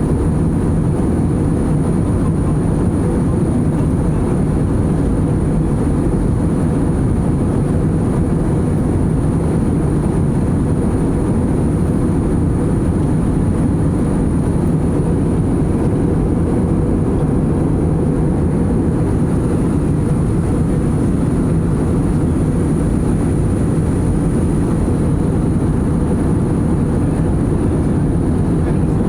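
Steady in-flight cabin noise of a jet airliner: the even, low rumble of engines and airflow heard from inside the cabin, with a faint high steady whine above it.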